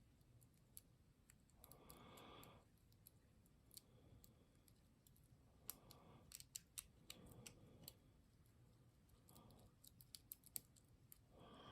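Faint, irregular clicks of a lock pick and tension wrench working the pins inside a padlock, with a few soft rustling sounds in between.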